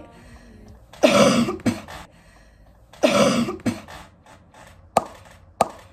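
A young woman coughs twice, about two seconds apart, then two sharp clicks follow near the end.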